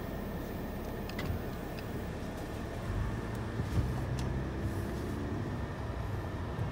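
Steady low vehicle rumble heard from inside a stopped car's cabin, with a deeper engine drone swelling about three seconds in.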